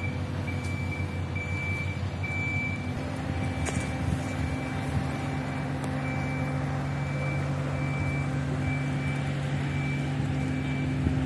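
Heavy lifting machinery's engine running steadily, its note shifting about three seconds in, with a high warning beeper sounding in a regular on-off pattern as the yacht is hoisted.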